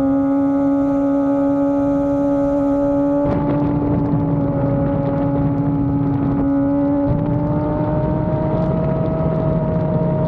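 Kawasaki ZX-25R's 250 cc inline-four engine held at high, steady revs, a high engine note. About three seconds in a lower rumble joins it, and the pitch climbs slightly later on.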